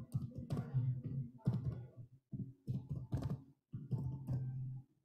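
Typing and clicking on a computer keyboard, with a low droning tone in stretches of about a second underneath.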